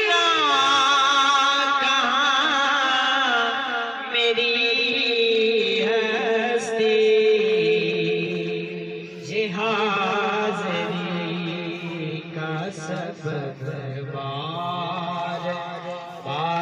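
A naat, an Urdu devotional song in praise of the Prophet, sung in long drawn-out notes that waver up and down in pitch, with no clear words.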